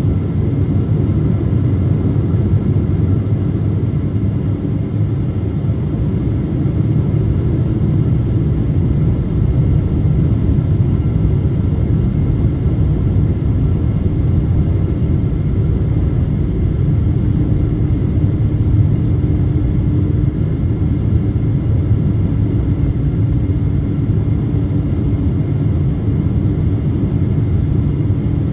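Steady cabin roar inside a Boeing 777-200 on approach, heard from a window seat over the wing: engine and airflow noise. A faint hum comes in twice in the second half.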